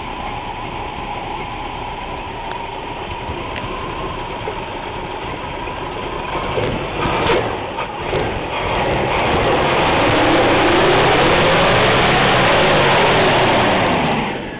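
Chevrolet C20 pickup's 350 cubic-inch V8 idling steadily, heard close up under the hood by the belts and accessories. Runs smooth. A few knocks come a little past halfway. From about nine seconds in a louder rushing noise with a swooping pitch covers the engine, then drops away just before the end.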